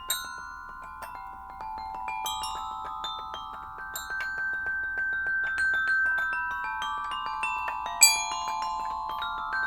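Toy xylophone bars struck quickly with mallets, playing a wandering run of notes that ring on and overlap, with toilet paper laid on the bars to change the tone. One strike about eight seconds in is louder than the rest.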